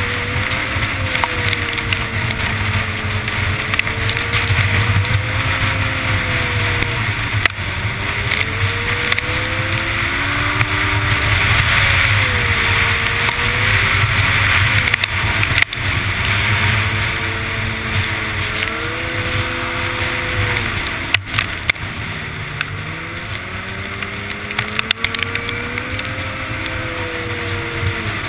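Snowmobile engine running at speed, its pitch rising and falling as the throttle is opened and eased off several times, with a steady rushing noise underneath.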